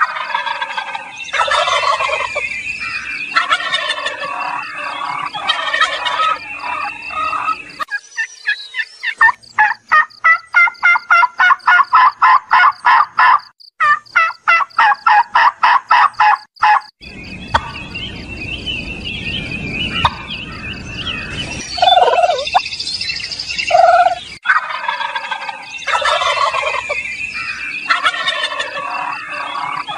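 Domestic turkeys calling: gobbles mixed with overlapping chirping calls. In the middle, a run of rapid, evenly spaced pulsed calls, about three a second, goes on for several seconds before the mixed calling returns.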